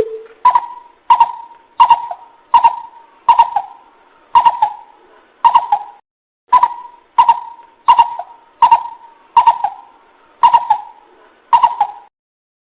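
Coucal (bubut) lure call: a long series of loud, evenly repeated call notes, about one and a half a second with a few short gaps. Each note opens with a sharp click. The notes stop about a second before the end.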